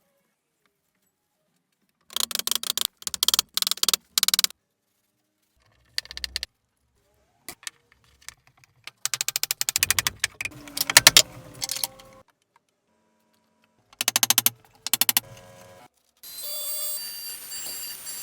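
Woodworking tool sounds: several bursts of rapid clicking strokes with silent gaps between them, then near the end a steadier rasping noise.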